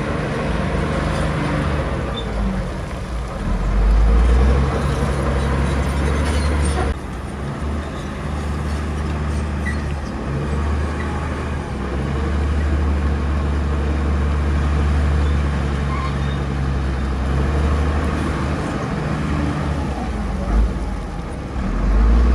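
Bulldozer's diesel engine running with a steady low drone, changing abruptly about seven seconds in.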